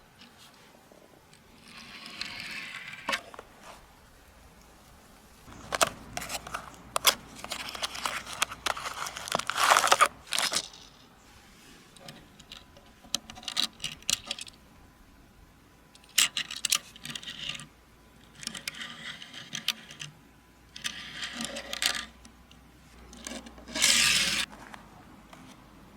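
Packaging of toy die-cast cars being handled and opened: irregular bursts of crinkling, rustling and tearing, with small clicks and knocks between them.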